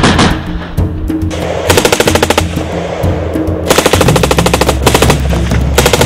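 M249 light machine gun firing three bursts of automatic fire, each about a second long, over background music.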